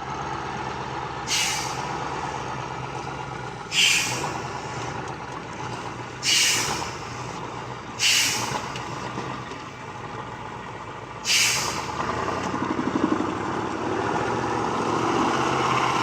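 Heavy truck's diesel engine running steadily, with five short sharp hisses of compressed air from its air brakes, each fading within about a second.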